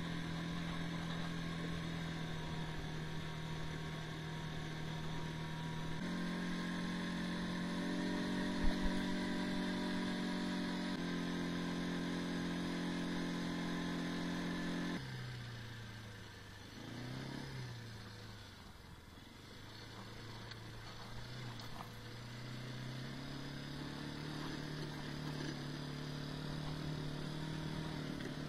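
A vehicle's engine running while under way, steady for stretches, its note jumping abruptly about six, eleven and fifteen seconds in, then sinking and slowly climbing again.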